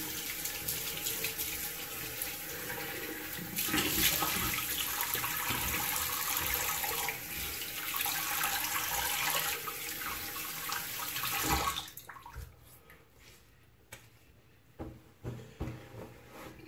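Bathroom tap running into the sink while shaving lather is rinsed off the face; the water is shut off abruptly about twelve seconds in, leaving only a few faint small knocks.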